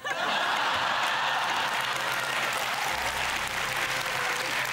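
Studio audience applause breaking out suddenly and holding steady.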